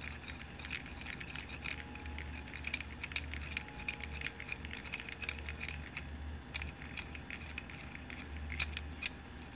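Threaded steel screw of a C-clamp turning in its metal frame as the T-handle is spun by hand, giving faint, irregular small clicks and ticks. The threads run smoothly, without grinding.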